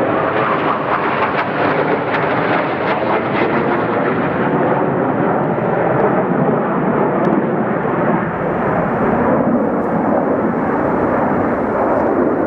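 Loud, steady jet engine noise from Blue Angels F/A-18 Hornets flying overhead in formation.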